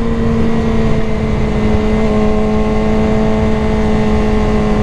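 A Suzuki GSX-R600's inline-four engine running at steady revs through a turn, its note holding level throughout, with wind noise underneath.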